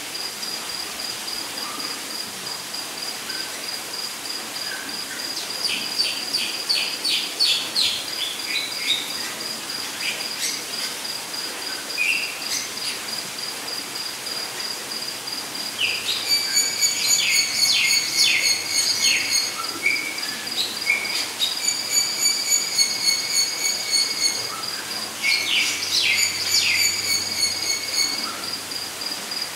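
Crickets trilling steadily in a fast, high, even pulse over a light rain hiss, with birds singing in several short bursts of chirps and whistled notes.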